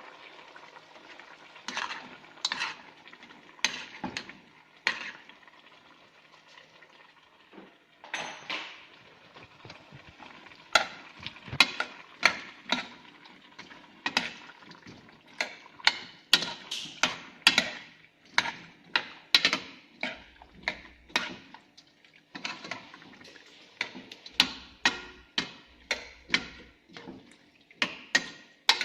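A utensil clanking and scraping against a cooking pot as the curry is stirred. The sharp knocks come irregularly, a few at first and then about one or two a second from about ten seconds in.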